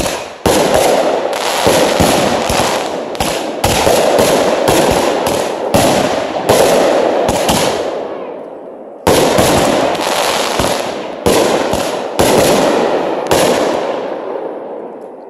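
Aerial fireworks going off in a rapid string of bangs, about two to three a second. There is a lull of about a second just past halfway, then another run of bangs that fades near the end.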